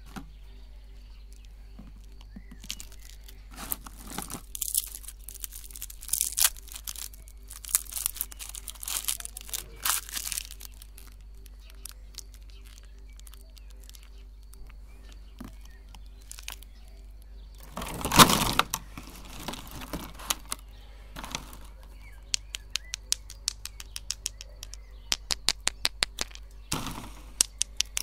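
Plastic lollipop wrappers crinkling and tearing in short bursts as they are pulled off by hand, loudest about two-thirds of the way in. Near the end comes a quick run of light clicks, like lollipops and their sticks tapping a clear plastic tray.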